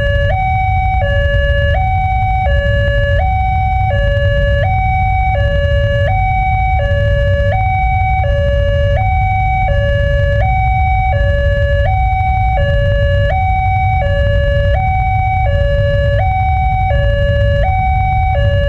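Railway level-crossing warning siren from a pole-mounted horn loudspeaker, alternating steadily between a high and a low note, each held for well under a second, signalling that the barriers are down and a train is approaching.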